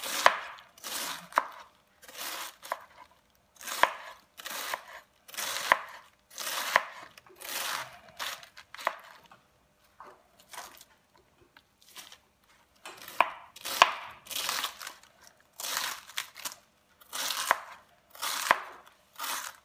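Knife slicing through a head of cabbage on a plastic cutting board: each stroke is a crisp crunching rasp ending in a knock of the blade on the board. The strokes come about one a second, with a pause of a couple of seconds near the middle.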